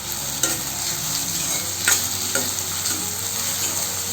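Chopped onions and curry leaves sizzling in hot oil in a kadai as they are stirred and sautéed, with a few sharp clicks from the stirring against the pan.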